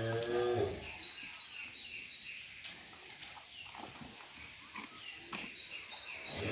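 A cow lowing: one low moo, about a second long, that ends within the first second. A repeated high chirping, about three a second, runs in the background.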